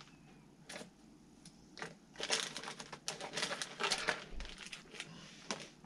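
Plastic bait packaging crinkling and crackling as it is handled and opened, with a dense run of sharp crackles in the middle stretch.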